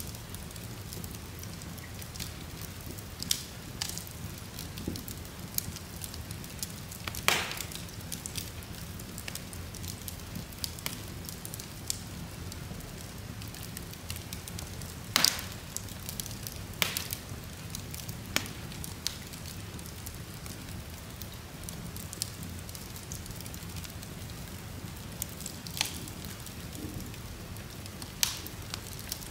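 Wood logs burning in an open fireplace: a steady low rush of flame with scattered sharp crackles and pops from the wood, the loudest pops about seven seconds in and again about fifteen seconds in.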